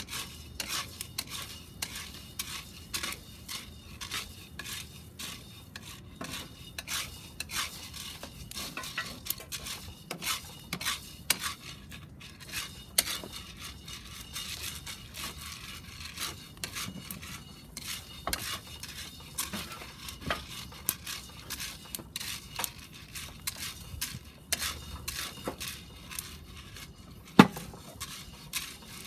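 Coffee beans being stirred with a wooden spoon in a round cast iron pot as they roast, the beans rattling and scraping against the iron with many irregular sharp clicks. One louder knock comes near the end.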